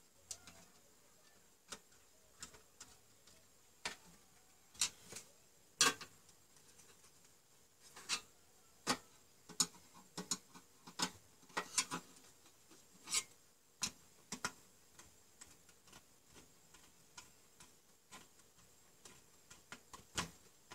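Irregular sharp clicks and taps from hands wiring miniature circuit breakers: a screwdriver working the terminal screws and a wire knocking against the plastic breaker cases. The loudest clicks come about five to six seconds in.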